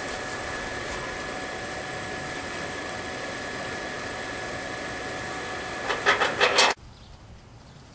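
Electric blower fan of a homemade brake-rotor forge running steadily, a hiss of forced air with a thin constant whine. About six seconds in, a short run of loud metal scraping and clattering as tongs are drawn out of the firepot, then the sound cuts off abruptly.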